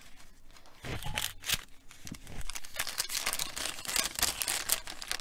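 Scissors snipping through a thin paper treat bag, then the paper crinkling and rustling as the bag is pulled open, busier from about two seconds in.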